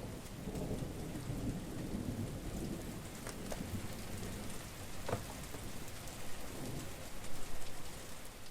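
Heavy rain pouring steadily, with a low rumble underneath and a few louder single drops striking close by.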